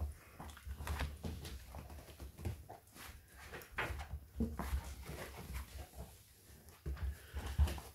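German shepherd puppies playing rough over shredded toilet paper: a string of short, irregular scuffles and rustles.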